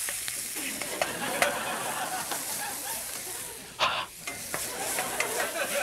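Ground pork, garlic and dried chili sizzling in a hot wok as they are stir-fried, with a wooden spatula scraping and pushing the meat around the pan. A louder scrape comes about four seconds in.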